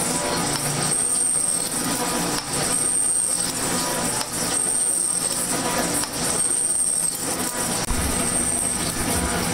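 Smith & Mills metal shaper cutting aluminum, its ram running back and forth in a steady rhythm of about one stroke every two seconds. A brief high squeal comes once each stroke, five times, over a constant mechanical clatter.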